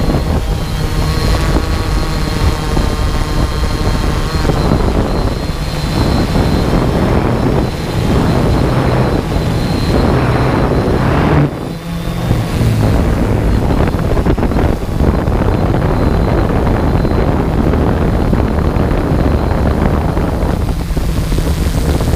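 Onboard sound of a small remote-controlled aircraft in flight: its motor and propeller running steadily under wind noise on the microphone. The sound dips briefly about eleven and a half seconds in.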